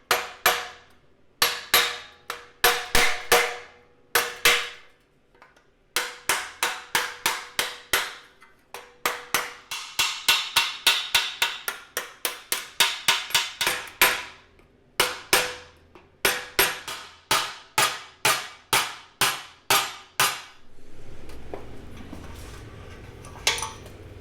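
Hammer blows on a block of wood laid over an 18-gauge steel sheet-metal flange, folding it into a hem: quick runs of sharp strikes, two to four a second, with short pauses, the sheet metal ringing. The hammering stops about 20 seconds in, leaving a low steady hum and one last knock near the end.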